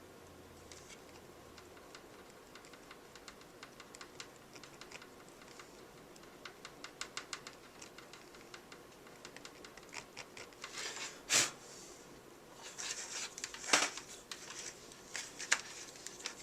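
Faint, irregular small clicks and taps of a hard plastic lid being handled and worked with a soldering iron while the weld is smoothed. The clicks start sparse and grow busier, with a few sharper knocks in the second half.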